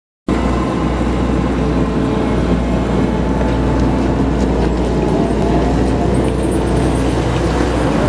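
Diesel engines of Claas Lexion combine harvesters running steadily, a low, even rumble with a hum above it.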